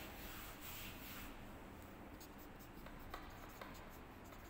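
Faint rubbing of a duster wiping a marker board, then a marker pen writing on the board with soft scratches and a few light ticks.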